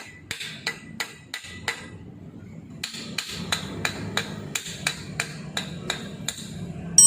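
Ball-peen hammer tapping around the rim of a copper tube end clamped in a flaring tool, rounding it out for a double flare. The light metallic strikes come about three a second, with a pause of about a second two seconds in.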